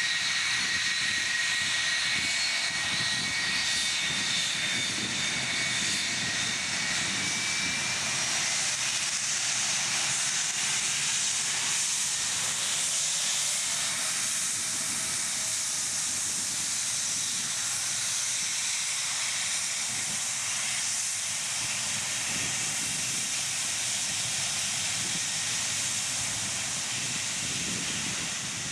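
Jet engines of an American Airlines Boeing 757 at taxi power: a steady rushing hiss with a low rumble underneath, and a thin high whine that fades away within the first several seconds.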